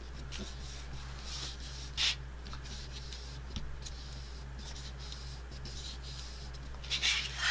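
Hands rubbing and pressing a glued paper panel flat against cardstock: soft paper rustling and rubbing, with a brief louder scrape about two seconds in.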